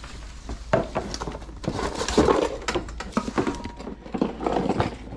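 Household items being rummaged through and shifted by hand, with repeated clatter, knocks and thuds of objects against one another, busiest about two seconds in.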